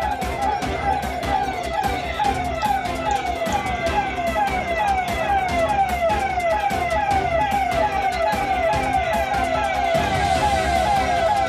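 Police siren sounding a fast repeating yelp: short falling sweeps of pitch, about three a second, continuous.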